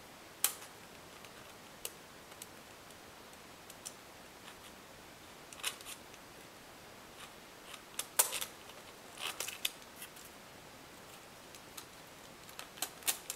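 Scattered sharp clicks and light taps of metal quadcopter booms and plastic boom mounts being fitted by hand over the screws of the chassis plate, with a quick cluster of clicks about two-thirds of the way through.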